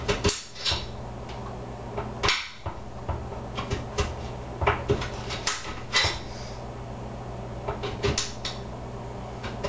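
Kitchen knife slicing a firm vegetable on a cutting board: irregular short knocks of the blade meeting the board, a dozen or so spread unevenly, over a low steady hum.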